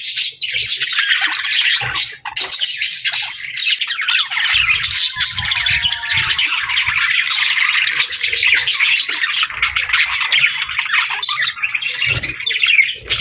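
A flock of small parrots chattering continuously, a dense overlapping mix of rapid chirps, warbles and squawks.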